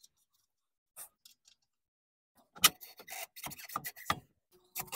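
Quiet at first, then from a bit past halfway a run of irregular light clicks and knocks, like metal parts being handled: hands working the loosened lower control arm of a Toyota Camry at its ball joint.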